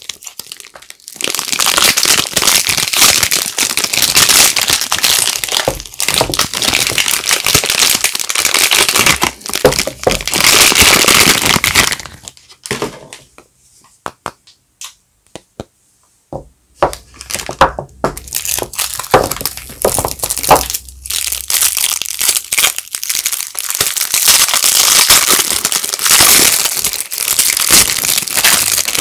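Soap bar wrappers being unwrapped by hand: loud crinkling and tearing of the wrapping. Partway through it goes almost quiet, then gives a few sharp clicks and crackles before the crinkling picks up again.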